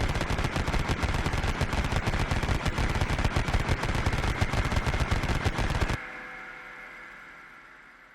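Vulcan rotary machine gun firing one continuous burst of about six seconds that cuts off suddenly, followed by a fading tail with a high whine lingering in it.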